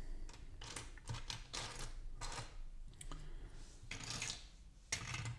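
Plastic LEGO bricks clicking and rattling as they are handled and pressed onto the build, in a series of small, irregular clicks.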